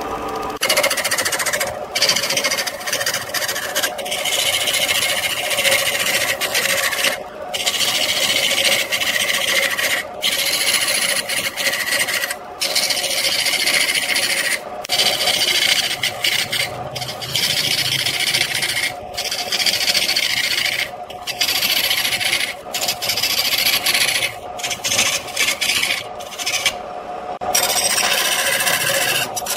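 Turning tool cutting a large spinning block of wood on a lathe: a steady hiss of shavings peeling off over the lathe's steady hum. The cutting breaks off briefly about a dozen times, every two seconds or so.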